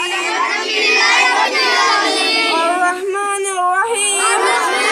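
Group of boys reciting Arabic prayer aloud together in a chanted, sing-song voice during namaz, many overlapping voices.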